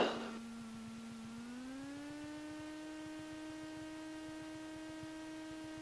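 Cessna 172S engine heard through the cockpit intercom as a steady pitched hum. About a second and a half in it rises in pitch as the engine revs come up, then holds at the higher note.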